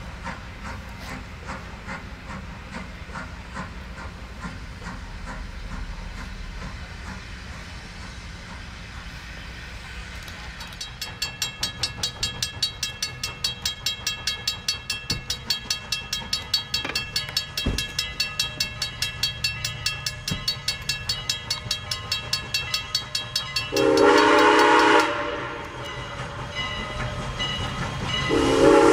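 A steam locomotive working, its exhaust beats faint at first. About ten seconds in a bell starts ringing steadily, two or three strokes a second. Near the end a steam whistle sounds two loud chime blasts, from the 1910 Canadian Locomotive Company 2-6-0 Mogul No. 89 as it passes close by.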